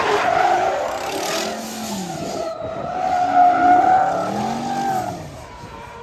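Drift cars sliding through a corner: engines revving up and down on and off the throttle with tires squealing, fading away near the end.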